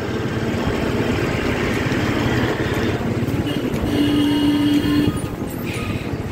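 Road and engine noise with wind rushing over the microphone, recorded from a moving two-wheeler in dense traffic. About four seconds in, a vehicle horn sounds one steady note for about a second.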